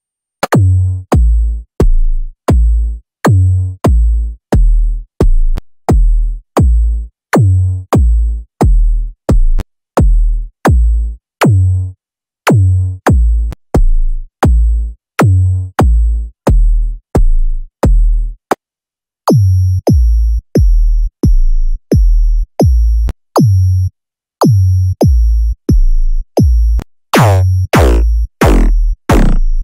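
Synthesized electronic kick drums from the KickOne kick-synthesizer plugin, hit about twice a second in short runs, each a sharp click on a deep boom that falls quickly in pitch. The kick sound changes between presets at brief gaps, and near the end the kicks turn harder and grittier, a hardstyle kick preset.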